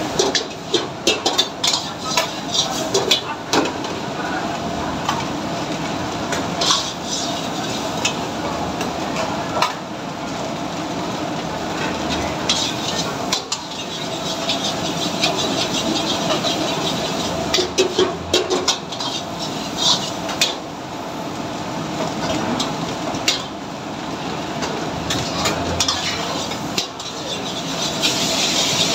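A steel ladle stirring and scraping chicken curry in a large steel pan on a gas burner, with frequent clicks and knocks of metal on metal in clusters over a steady sizzle and a steady background hum.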